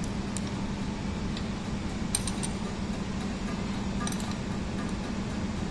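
Spanners clinking against the rocker arms and adjusting screws of a BEML D155 dozer's diesel engine during tappet (valve clearance) setting: scattered light metal ticks, a cluster about two seconds in and another around four seconds, over a steady low hum.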